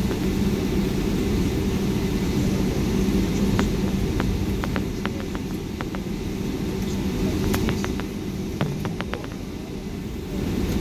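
Cabin noise of a Boeing 757-200 taxiing after landing: a steady low rumble from the idling engines and the rolling airframe, with a steady hum underneath. Scattered light clicks and rattles sound through it, several in quick succession about four and then seven to nine seconds in.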